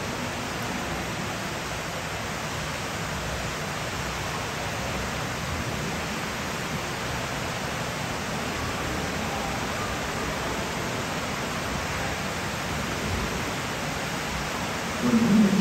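Steady, even rushing of running water in the ride's boat channel and aquaculture tanks. It grows louder near the end.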